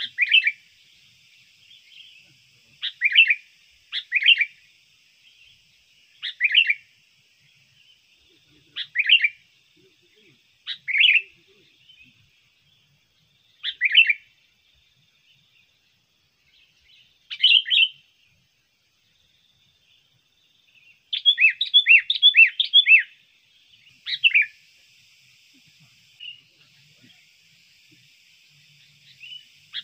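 Sooty-headed bulbul (kutilang) giving short bubbly call phrases every two to three seconds, then a quicker run of several notes about two-thirds through, used as a lure call. A faint steady high hiss runs under the calls.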